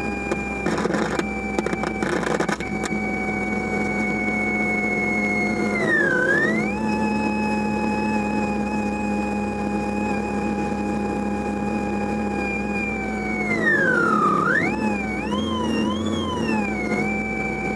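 Electronic whine from a Renault 21 Turbo D's car radio speakers, electrical interference picked up from the dashboard instruments, over a steady low hum. The whistling tone holds steady, swoops down and back up about six seconds in, dips again later and wobbles up and down three times before settling; a few crackles come early on.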